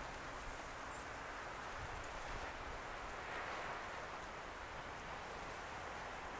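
Steady outdoor ambience of wind over choppy harbor water, an even hiss with a brief faint high chirp about a second in.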